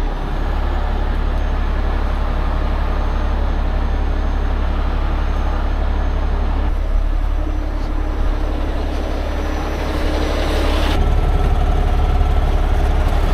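Heavy rotator tow truck's diesel engine running steadily, getting somewhat louder near the end.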